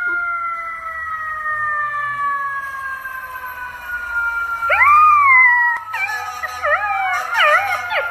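A long, smooth, slowly falling siren-like wail, with a golden retriever puppy joining in with howls from a little past halfway; near the end the howls waver up and down and overlap.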